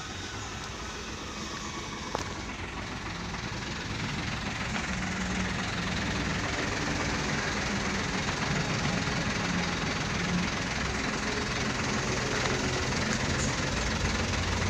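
A truck engine idling steadily, growing gradually louder, with a single sharp click about two seconds in.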